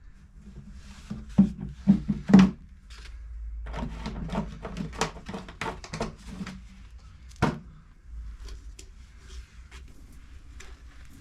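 Knocks and clatters of objects being handled: three or four heavy thuds about two seconds in, a run of lighter clicks and rattles, then one sharp knock a little past seven seconds.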